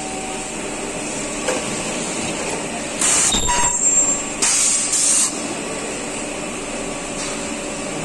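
Ultrasonic plastic welding machine running a weld cycle to join sections of a plastic air-conditioner blower wheel: two loud bursts of high-pitched noise, each about a second long, starting about three seconds in and again about a second and a half later, over a steady machine hum.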